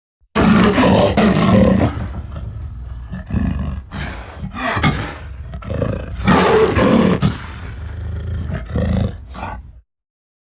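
Spinosaurus roar sound effect. It opens loud about half a second in, sinks to a lower rumbling stretch, swells into a second loud roar past the middle, and trails off shortly before the end.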